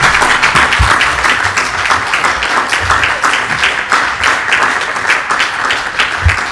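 Audience applauding: many people clapping at once, without a break.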